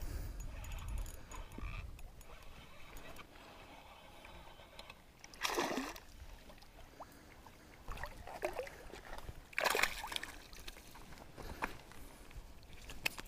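A hooked bass thrashing and splashing at the water's surface close to shore as it is reeled in, with a sharp splash a little before halfway through and another about three-quarters of the way in, plus a few smaller splashes.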